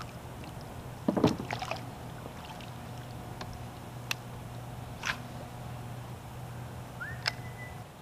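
Scattered knocks and clicks from a fishing kayak and its gear, with a cluster of them about a second in and single ones after, over a steady low hum. A short rising whistle that holds its pitch comes near the end.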